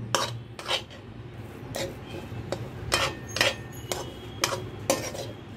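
Metal spoon scraping and clinking against a steel kadhai while stirring a thick, crumbly semolina-and-coconut mixture: about ten short, irregular strokes.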